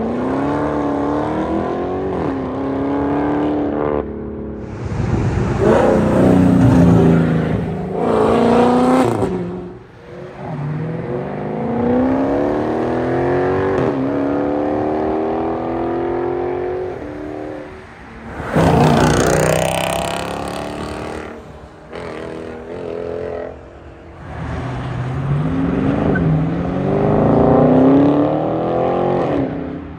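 Mopar performance car engines revving and accelerating hard, the engine note climbing in pitch over and over, in several short separate runs. A loud full-throttle stretch comes about two-thirds of the way through.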